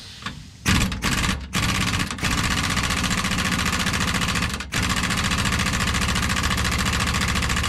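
Pneumatic impact wrench, driving an 18 mm chrome socket, hammering on the rusted nut of a truck's lower shock mount. It starts with a couple of short runs, then hammers steadily with one brief break before stopping near the end.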